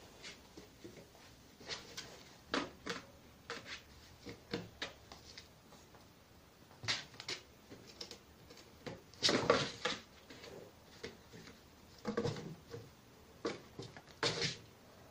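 Irregular knocks, scuffs and rustles of a small box and a piece of cardboard being pushed and knocked about on the floor by a small pet. The loudest cluster of scrapes comes about nine seconds in.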